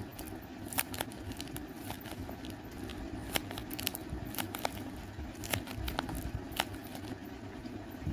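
A blind bag being handled and opened by hand: irregular crinkling and crackling clicks throughout.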